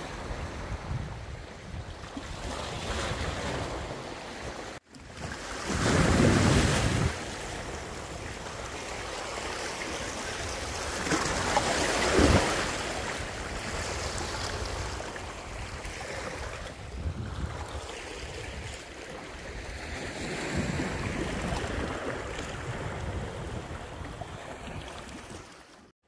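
Black Sea surf washing onto the shore, with wind on the microphone. Louder waves swell up about six and twelve seconds in, and the sound breaks off briefly about five seconds in.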